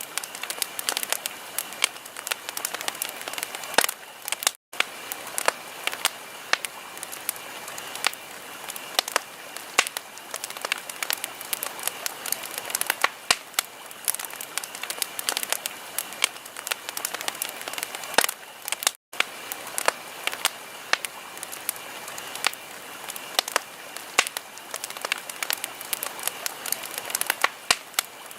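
Wood fire crackling: a dense run of sharp pops and snaps over a steady hiss. The sound cuts out for an instant twice, about five seconds in and again about nineteen seconds in.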